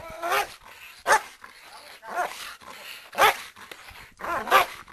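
Dog barking repeatedly on a leash during protection (defence) training, about one bark a second, with two quick barks near the end.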